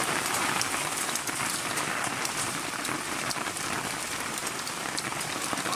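Heavy storm rain mixed with hail pelting down, a steady hiss dotted with many small sharp hits.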